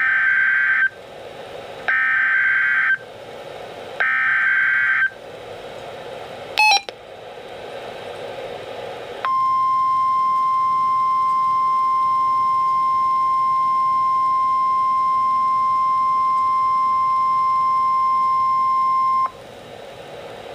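NOAA Weather Radio Emergency Alert System activation for a severe thunderstorm warning, heard over a radio receiver. First come three buzzy one-second bursts of SAME data header, a second apart, then a brief click. After that the steady 1050 Hz warning alarm tone sounds for about ten seconds and cuts off, leaving radio hiss.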